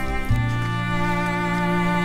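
Slow background music of held bowed-string notes, the chord changing about a third of a second in.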